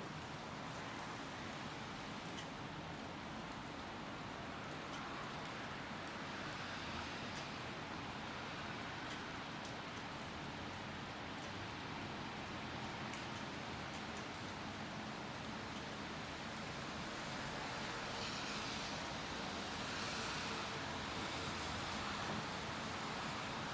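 Steady summer rain falling, an even hiss with scattered drops tapping, growing a little louder near the end.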